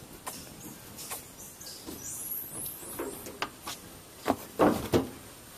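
Irregular knocks and taps, the loudest a short cluster about four and a half seconds in, with a run of high, quick, falling bird chirps about two seconds in.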